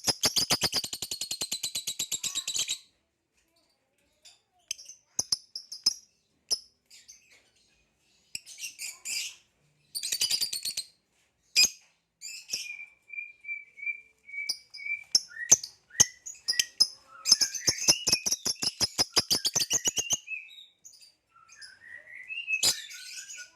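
Lilian's (Nyasa) lovebird singing: a burst of rapid, clicking chatter at the start and another about three quarters of the way through, broken by pauses and short chirps, with a steady high note held for a couple of seconds in the middle.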